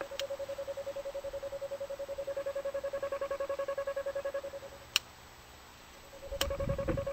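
Dynatel 573 cable locator receiver sounding its signal tone: a steady-pitched tone pulsing about a dozen times a second, showing that it is picking up the locate signal through the inductive clamp. Past the middle the tone drops away for about a second and a half, with a sharp click, then comes back.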